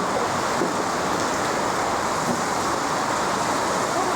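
Heavy rain falling as a steady, dense hiss that holds an even level throughout.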